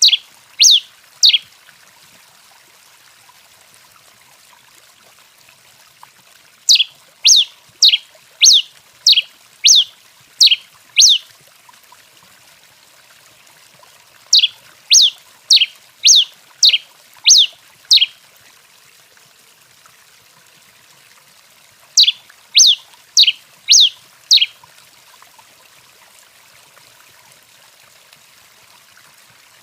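Tico-tico-rei, a Coryphospingus finch, singing in bouts of sharp, downward-sweeping whistled notes, about two a second. The bouts run three, eight, seven and five notes, with pauses of a few seconds between them.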